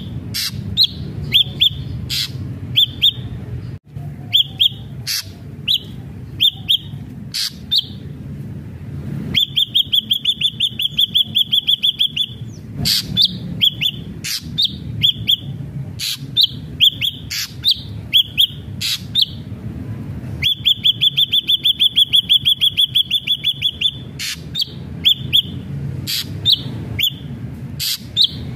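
Ashy drongo singing: a string of sharp whistled notes and calls, broken by two long rapid trills of about three seconds each, one near the middle and one about two-thirds through. A steady low hum runs underneath.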